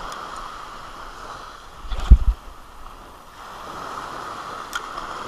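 Small waves breaking and washing up a sandy beach, a steady hiss of surf, with one loud low thump about two seconds in.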